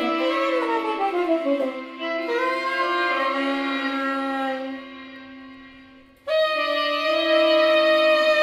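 Tenor saxophone, likely run through sound effects, playing sliding, bending pitches over a held low note. It fades out around five seconds in, then a loud sustained tone cuts in suddenly about six seconds in.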